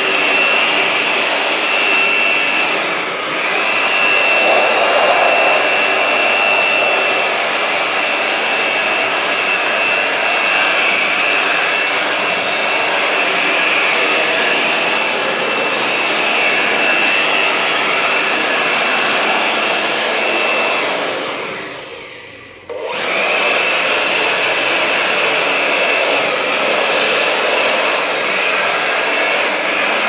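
Handheld electric blower running at full speed, a steady rushing airflow with a high whine, blowing dust out of a gas water heater's burner and heat exchanger. About 21 s in it is switched off and winds down, then is switched back on abruptly about two seconds later.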